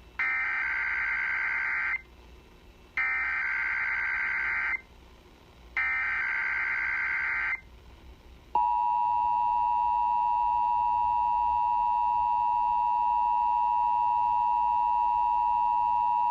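Emergency Alert System tones as broadcast on AM radio. First come three bursts of digital SAME header data tones, each about two seconds long with short gaps between. Then, about eight and a half seconds in, the steady two-tone EAS attention signal starts and holds.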